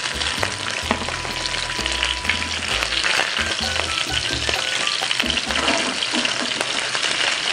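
Fish pieces sizzling steadily in hot oil in a frying pan, with a few light clicks and scrapes of a steel spatula against the pan as the fried pieces are lifted out.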